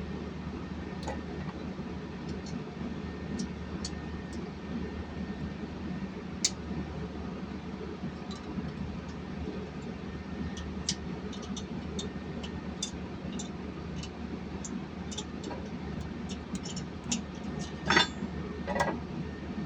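Scattered light metallic clicks and clinks of metal parts and tools being handled, with a few louder knocks near the end, over a steady low machinery hum.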